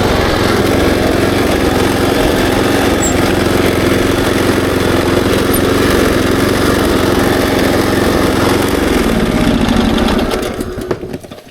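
Small engine of a Kubota SPJ400 rice transplanter running steadily. Near the end it slows, drops in pitch and dies away as it is shut off.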